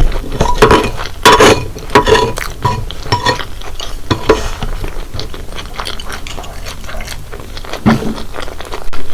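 Cutlery clinking against a bowl of saucy cheese-corn Buldak ramen as the noodles are stirred and picked up, with a quick run of sharp ringing clinks in the first few seconds and softer wet handling sounds after.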